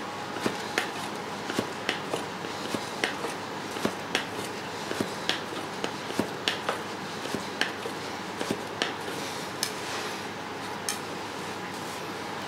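Kitchen knife knocking on a cutting board at the end of each stroke while slicing beef into thin yakiniku slices: sharp, irregular clicks about two a second, thinning out near the end.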